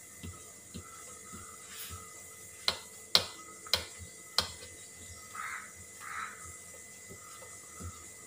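Rolling pin rolling out thin parotta dough on a stone counter: soft rubbing of the pin over the dough, with four sharp knocks in quick succession a little before the middle as the pin strikes the stone.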